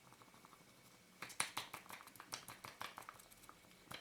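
Light clicks and taps of lens parts being handled as an element comes out of a camera lens barrel. It is a quick irregular run of small clicks starting about a second in, with one more click at the very end.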